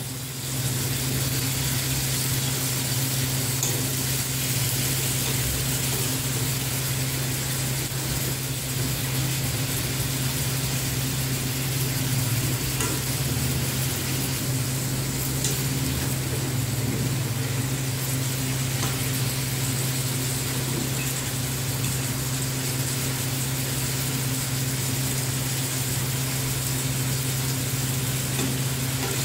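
Chicken pieces sizzling in oil in a frying pan, turned now and then with a fork against the pan, over a steady low hum.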